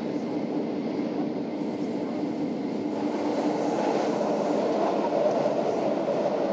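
Inside the passenger car of an Aigle–Sépey–Diablerets metre-gauge electric train running downhill: a steady rumble of wheels on rail with a low steady hum, getting a little louder about halfway through.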